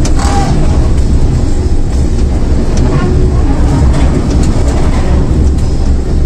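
RGE-20 diesel-electric locomotive's engine running with a steady deep rumble, heard from inside the cab while the locomotive rolls along the track, with a few sharp clicks.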